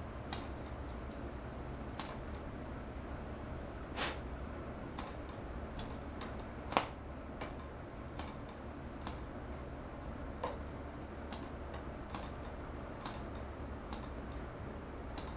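Cox Medallion .049 glow engine being flipped over by finger without firing: a string of sharp clicks at irregular spacing, roughly one a second, as the prop is snapped through. The engine does not catch, which the person flipping it takes for flooding.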